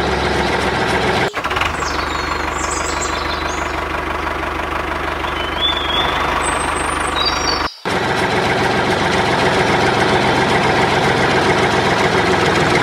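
Engine running steadily, a tractor-type engine sound for the toy tractors. It cuts off briefly and sharply about a second in and again near eight seconds in.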